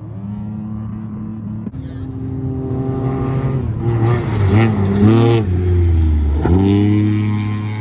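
Off-road race truck engine revving as it approaches and goes by, growing louder to a peak about five seconds in. Around the middle its pitch swings down and up several times as the throttle is lifted and reapplied, then it settles into a steady high note.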